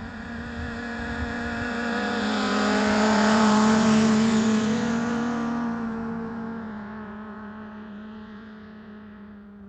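A motorcycle passing by: its engine note swells as it approaches, is loudest about four seconds in, then fades as it moves away, and cuts off abruptly at the end.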